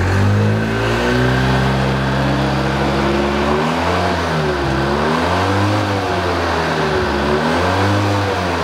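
2004 Polaris Sportsman 700 EFI's twin-cylinder engine revved up from idle and held at about 3,500 rpm. The revs then sag and pick up again twice. It is a charging-system check: at these revs the new stator and regulator charge at about 14.2 volts, a sign that the charging system is working well.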